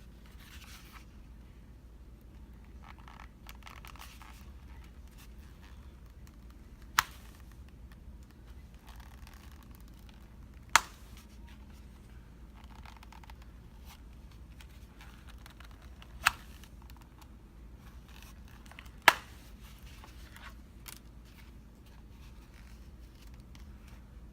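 Zip ties snapping as they are cut: four sharp snaps a few seconds apart, with light scraping and rustling of handling in between.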